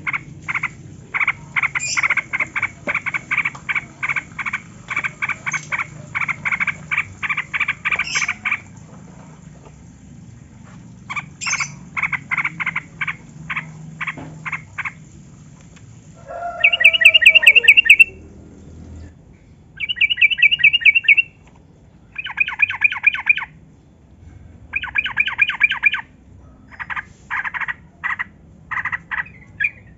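Yellow-vented bulbul (trucukan) singing: long runs of quick, repeated chattering notes broken by pauses. The loudest part is a harsh chattering burst a little past halfway, followed by several short, fast trills.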